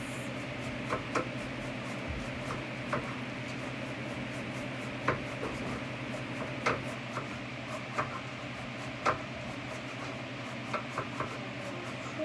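Knife cutting leafy greens on a cutting board: short, irregular knocks of the blade against the board, a second or two apart, with the rustle of leaves. A steady low hum runs underneath.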